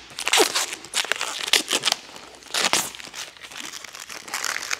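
Protective film being peeled off a clear plastic panel, tearing and crinkling in several quick pulls, the loudest in the first three seconds and softer after.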